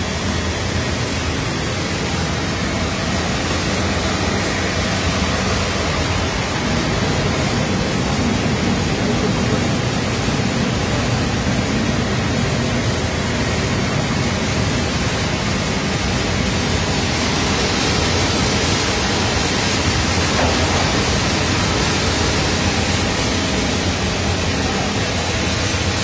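Steady, even rushing machine noise, typical of an industrial tunnel microwave oven running with its fans and conveyor going.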